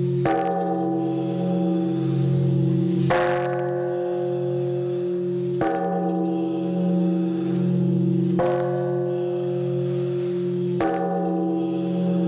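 A large hanging temple bell struck from the side with a swinging wooden log, five strokes about two and a half seconds apart. Each stroke rings on with a low, slowly wavering hum that carries into the next.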